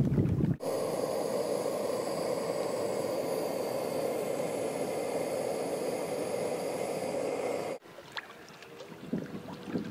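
A steady, even rush of outdoor ambient noise with no distinct events. It cuts off suddenly near the end, giving way to a quieter stretch with a few faint clicks and rustles.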